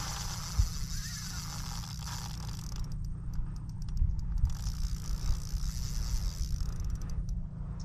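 Fishing reel ratcheting in two spells of about three seconds each while a large fish is played on the line, over a steady low rumble with a couple of dull thumps.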